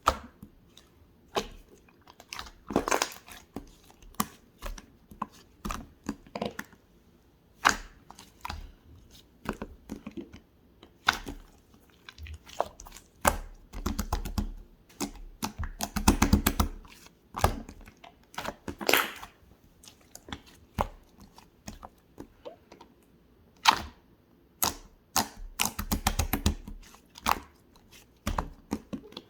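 Slime being squeezed, poked and folded by hand: irregular sticky clicks and pops, with a few longer bursts of crackling squishes.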